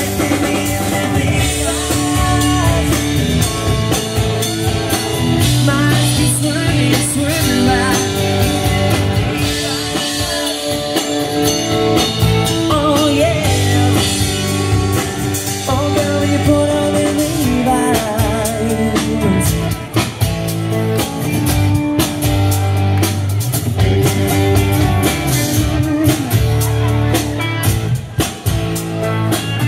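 Live country-rock band playing: electric guitars, acoustic guitar, bass and drum kit, loud and steady, with a melodic lead line over the beat.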